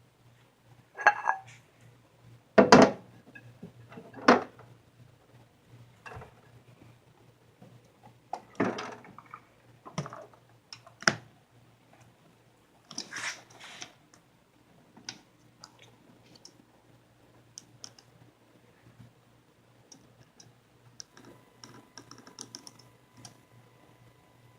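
Irregular clicks and knocks, a few of them loud, from handling a vintage Panasonic Sky-Lite microwave oven with a door that lifts up from the bottom.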